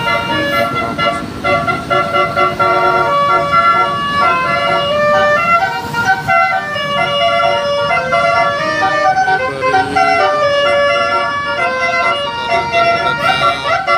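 Bus telolet horn: a multi-tone air horn playing a tune of held notes that step from one pitch to the next without a break.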